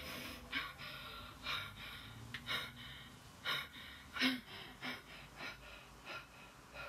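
A woman breathing in short, ragged gasps, about one every second.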